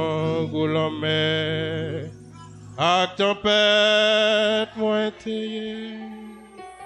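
A man singing a slow hymn in long, wavering held notes, with a short break between phrases about two seconds in.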